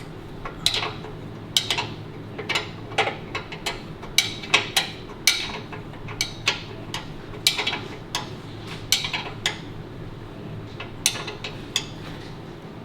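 A wrench tightening a nut on a motorcycle's rear axle: an irregular run of sharp metallic clicks, several a second in places, over a steady low hum.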